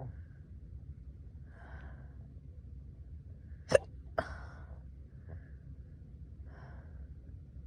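A person hiccupping: two sharp hiccups about half a second apart near the middle, the first the loudest, with a few softer breathy sounds between them and around them.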